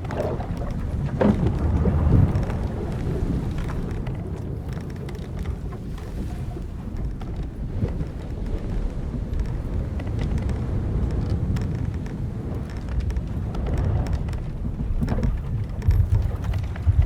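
Old wooden sailing ship at sea: a steady low rush of waves and wind against the hull, with the odd creak of timbers and rigging, one about a second in and another near the end.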